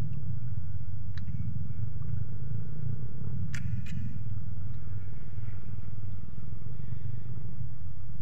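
Small fishing boat's engine running with a steady low drone, with a few faint clicks about a second in and near the middle.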